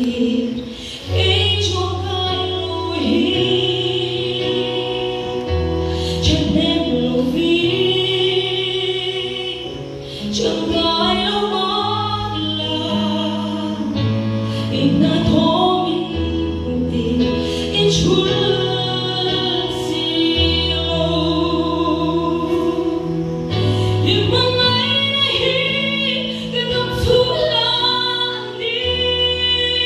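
A woman singing a slow song into a microphone through a PA system, with vibrato on her held notes, over an accompaniment of sustained bass notes that change every couple of seconds.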